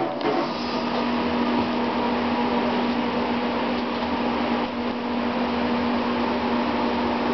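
A steady machine hum: a constant low drone over an even hiss, with no change in pitch or level.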